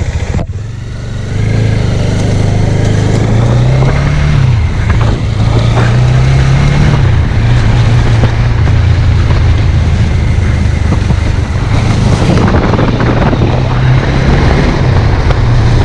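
Bajaj Dominar motorcycle's single-cylinder engine pulling away and accelerating. Its pitch rises and drops back twice as it shifts up through the gears, then it runs steadily at cruising speed.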